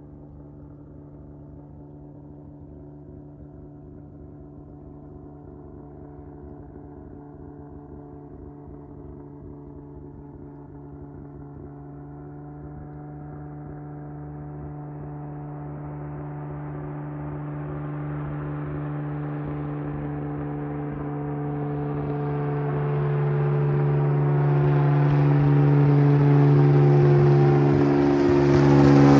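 Cessna A185F Skywagon's six-cylinder piston engine and propeller droning steadily on approach. The drone grows steadily louder and brighter as the plane nears, loudest near the end.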